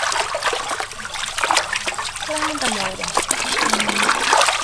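Tap water pouring into a basin while hands rub and slosh a large piece of raw pork skin in the water, with frequent small splashes.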